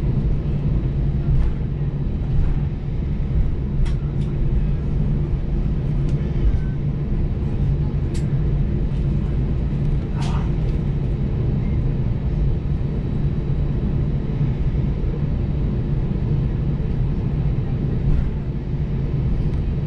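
Cabin noise of an Airbus A321 taxiing after landing: a steady low rumble from the jet engines at idle and the wheels rolling, with a few faint clicks.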